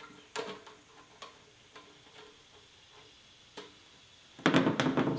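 Light, scattered clicks of a screwdriver backing the set screws out of a power converter's cable terminals, then a louder quick clatter of several knocks near the end.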